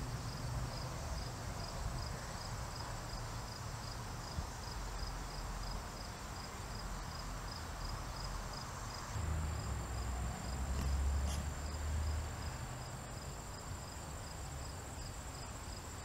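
An insect chirping steadily at a high pitch, about two to three evenly spaced chirps a second. A low rumble swells and fades about ten to twelve seconds in.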